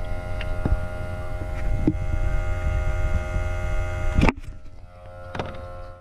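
Smoke machine's pump humming steadily while it pushes smoke into the engine to find a vacuum leak, with a few light knocks of handling. A sharp knock about four seconds in, after which the hum is quieter.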